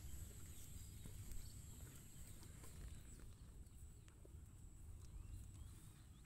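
Quiet pasture ambience: a low wind rumble on the microphone and a steady high-pitched hum, with a few faint chirps.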